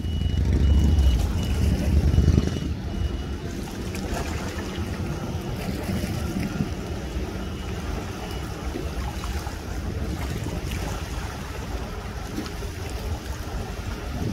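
Outboard motor of a pontoon boat running as it cruises past, with small waves lapping and wind buffeting the microphone, heaviest in the first two seconds or so. A faint high beep repeats about twice a second through the first part.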